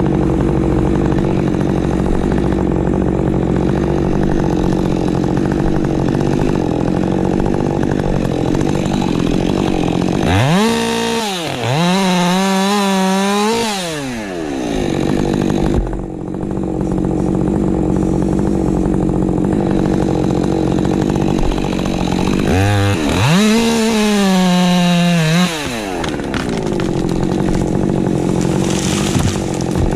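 Woods-ported Husqvarna 550 XP Mk II chainsaw with a 20-inch bar, revved to full throttle twice, about ten seconds in and again past twenty seconds. Each burst lasts three to four seconds, and the pitch wavers while it is held high. A steady engine drone runs underneath throughout.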